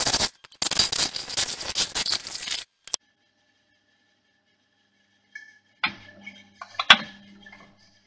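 Gouge cutting a spinning wooden blank on a wood lathe: a dense, loud scraping rattle that breaks off briefly just after the start and then stops abruptly under three seconds in. Near the end come a few faint clicks and tones, one sharp click the loudest.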